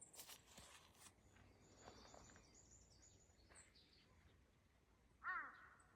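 Quiet outdoor ambience with a few faint, high bird chirps, then a crow caws once, loud and harsh, near the end.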